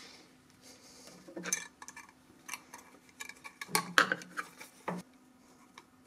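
Light metallic clicks and clinks of the brass astrolabe's hanging ring and shackle being handled and fitted, in scattered taps that are loudest around four seconds in.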